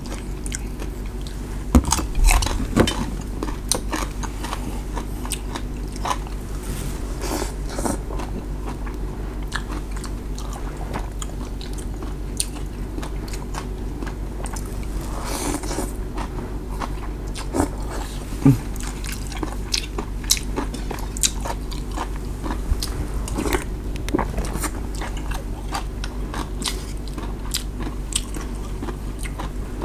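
A person eating beef noodle soup: chopsticks and a spoon clicking against a metal bowl, chewing, and a slurp of noodles about halfway through, over a steady low hum.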